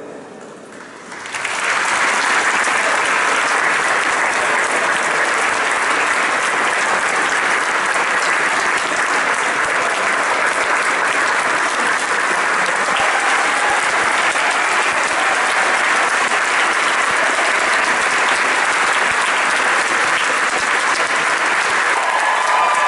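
A large audience applauding, starting about a second and a half in and then holding steady.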